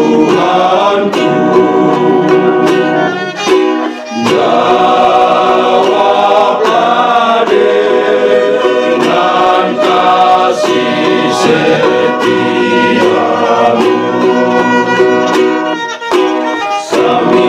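Men's choir singing in harmony, accompanied by a violin and a plucked small string instrument like a ukulele. The sound dips briefly about four seconds in.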